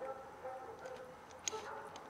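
Cats eating and drinking: a few sharp crunches of dry kibble, the loudest about one and a half seconds in, with a kitten lapping water, over faint held notes in the background.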